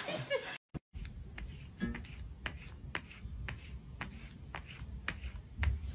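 A cat's paw tapping a tablet's touchscreen: a quick, uneven series of light taps and clicks, about three a second, over a low room rumble.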